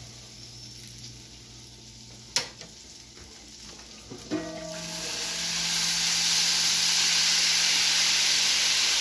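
Food sizzling on a Steelmade steel flat-top griddle, faint at first with a single click about two seconds in. About four and a half seconds in, a much louder hissing sizzle sets in and holds: water hitting the hot griddle to make steam for the kielbasa.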